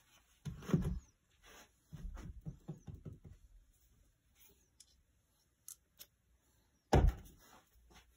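Handling noises on a concrete workshop floor: a low thud as the red plastic electric fence controller housing is set down, then a spell of small knocks and rattles. Near the end comes the loudest sharp knock, as a tool is set down among the others.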